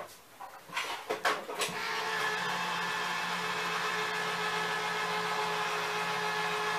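A few light knocks, then an electric appliance motor starts about two seconds in and hums steadily at one pitch.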